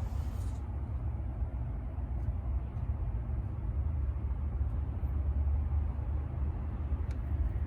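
Steady low rumble of a moving public-transit vehicle heard from inside the cabin.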